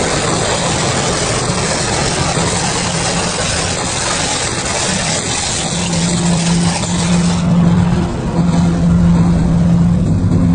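Double-shaft shredder running under load, its cutters tearing through a hopperful of plastic film and bags over a steady motor hum. About seven seconds in, the high tearing noise drops away, leaving mostly the hum.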